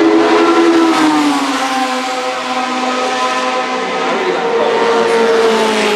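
Cosworth DFV 3.0-litre V8 of an Arrows A4 Formula One car running on track. Its note falls in pitch over the first couple of seconds, climbs again about four seconds in, and eases off near the end.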